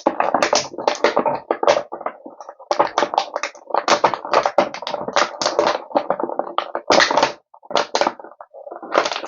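Plastic packaging being handled and opened, crackling and crinkling in dense irregular bursts with taps, with brief pauses about seven and eight seconds in.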